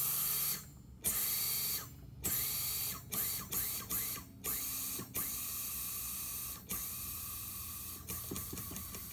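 Diversitech Drain Cat nitrogen gun blowing out a clogged air-conditioner condensate drain line: a string of sharp hissing blasts, several short ones followed by longer ones of a second or more, getting weaker near the end as the small refillable nitrogen tank runs empty.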